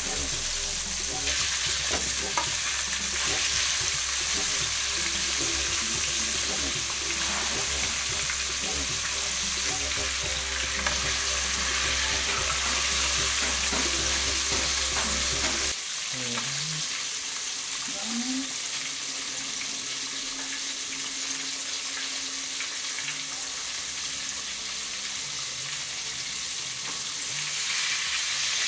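Flour-dusted fish frying in hot oil in a pot, sizzling steadily, dropping a little quieter about halfway through.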